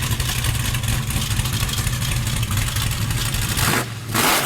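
Ford Mustang Shelby GT500's V8 exhaust idling with a steady, pulsing low rumble, cutting off shortly before the end, followed by a brief burst of hiss.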